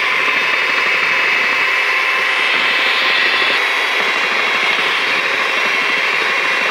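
Handheld electric mixer running steadily with a high whine as its beaters whisk eggs and vanilla in a bowl.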